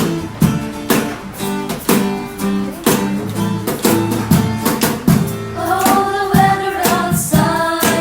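Music: an acoustic guitar strummed in a steady rhythm, with a voice singing over it from about five and a half seconds in.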